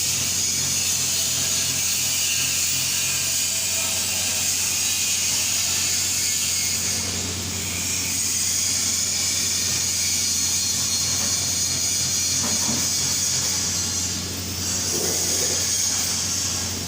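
TIG (GTAW) welding arc, a steady hiss and buzz over a low hum, with a faint pulsing about four times a second for the first few seconds and two brief dips in level.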